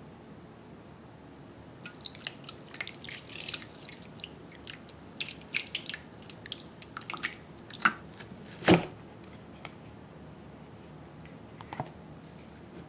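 Water poured from a pitcher over a plastic ice-ball mold, splashing and dripping into a glass bowl in a rapid run of small splashes. A sharp knock, the loudest sound, comes near the middle, with a lone click near the end.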